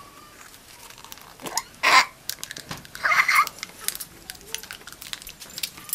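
A woven floor mat being brought out and spread on a cement floor: scattered light taps and rustles, with a brief louder swish about two seconds in. A short voice-like sound comes about three seconds in.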